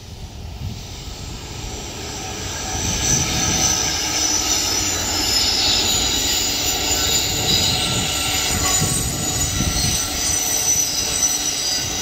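Pacific Surfliner passenger train's bilevel coaches rolling past on a curve, the wheel flanges squealing against the rails in several high, steady tones over a low rumble of the wheels. It grows louder over the first few seconds as the train arrives, then stays steady.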